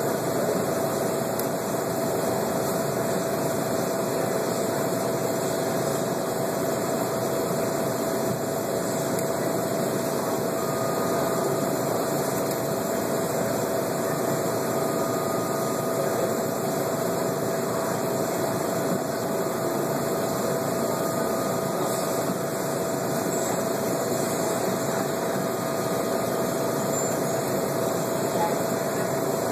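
Steady machinery hum and hiss with a constant mid-pitched tone, and a fainter higher tone that comes and goes in the middle.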